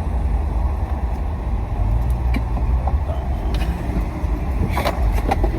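Car interior while driving: a steady low rumble of engine and road noise, with a few light clicks near the end.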